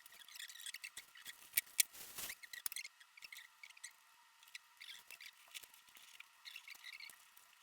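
Faint clicks, taps and light rustling from hands handling the TV stand and its parts during assembly, with two sharper clicks about one and a half seconds in.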